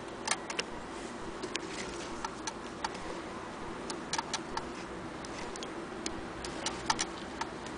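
Light, irregular clicks and taps from handling the needle and presser-foot area of an antique Singer 28K hand-crank sewing machine.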